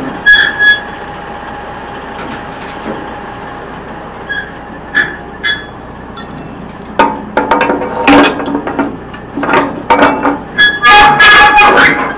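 Steel clanking and ringing from a log trailer's metal parts being worked by hand at a crank handle: a few scattered clanks, then a quick run of rattling clanks over the last five seconds, with a steady hum underneath.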